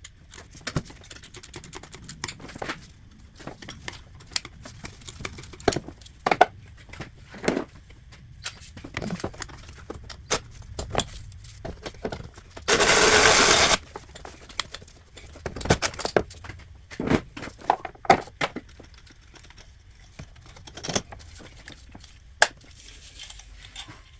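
Wrench and metal parts clicking and clinking irregularly as the serpentine belt tensioner's 13 mm bolt is worked loose and the tensioner removed. A loud, steady noise lasting about a second cuts in about halfway through.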